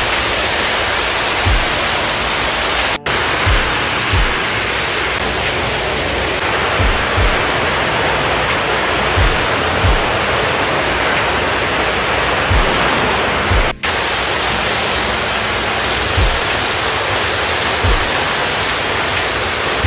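Background music with a slow, deep beat under a loud, steady rushing hiss. The sound cuts out for an instant twice, once about three seconds in and once near fourteen seconds.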